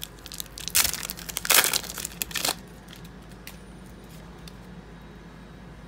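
Foil wrapper of a Donruss football trading-card pack being torn open and crinkled, loud for under two seconds starting about a second in. Then only faint handling noise with a few light clicks.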